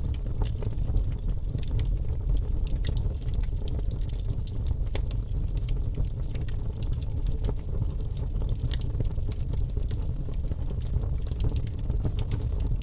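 Open fire crackling under grilling chicken: many scattered sharp pops and snaps over a steady low rumble.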